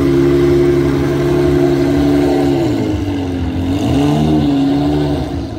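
Lamborghini Murciélago V12 engine revving as the car pulls away: revs held level for a couple of seconds, dropping, then rising and holding again, fading as the car moves off near the end.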